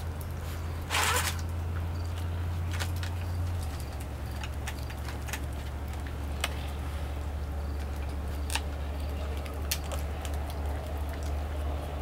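Puppies moving about and feeding around a plastic food dish on bare concrete. A brief scrape comes about a second in, then scattered sharp clicks and taps over a steady low hum.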